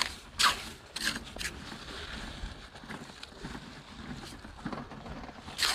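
Small hooked hand hoe scraping and digging through wet, gritty tidal-flat sand: four quick scraping strokes in the first second and a half, softer rustling of sand being worked, then another stroke near the end.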